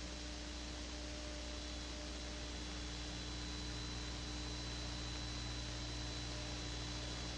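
Steady hiss with a low electrical hum and a faint high whine, unchanging throughout: the noise floor of an old off-air videotape recording, with no other sound.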